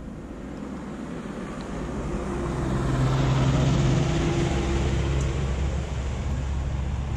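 Engine drone of a passing vehicle, swelling to its loudest around the middle and easing off toward the end.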